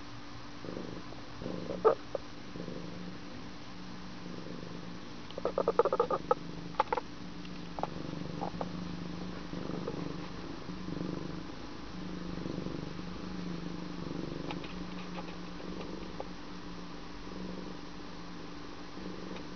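Domestic cat purring steadily while being petted, a sign of a relaxed, contented cat. A click about two seconds in and a louder cluster of clicks and rustles around six seconds in.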